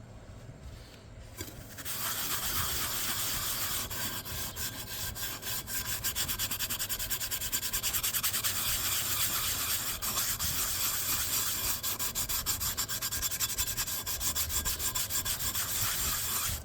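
Sponge loaded with gritty baking soda paste scrubbing the outside of a titanium pot. The rasping rub starts about two seconds in, turns into quick back-and-forth strokes from about six seconds on, and stops abruptly at the end.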